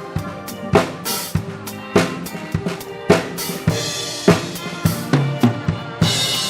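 Live band playing dance music: a drum kit keeps a steady beat, a little under two hits a second, with bass drum and snare, under sustained melody lines, with cymbal hiss swelling near the end.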